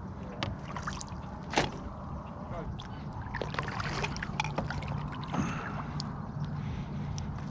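A paddle dipping and pulling through calm water as a small pirogue is paddled, with light knocks of the paddle against the hull and one sharper knock about a second and a half in.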